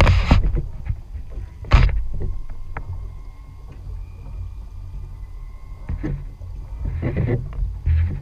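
Steady low rumble of wind and water around a small outboard fishing boat, broken by a few short hissing bursts, the loudest right at the start and about two seconds in.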